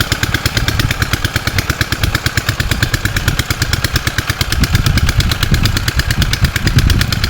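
Small single-cylinder engine running steadily, a rapid, even chug of firing pulses.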